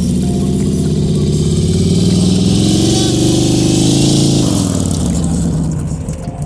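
2010 Harley-Davidson Street Glide's V-twin engine accelerating, its pitch rising steadily for about four seconds, then dropping sharply as the throttle comes off or it shifts gear.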